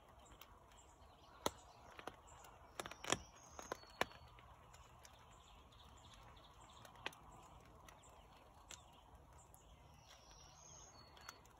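Quiet woodland ambience: a faint steady hush of distant car tyres on a road, with a few sharp ticks scattered through it. A bird gives two faint short high chirps, one about four seconds in and another near the end.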